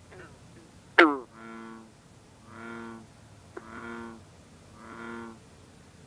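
Green frog giving one loud, short call about a second in, dropping quickly in pitch. It is followed by four drawn-out, low bullfrog calls about a second apart.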